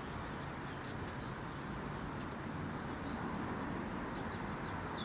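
Outdoor ambience: a steady hiss with a few short, high bird chirps, about half a second in and again near the middle.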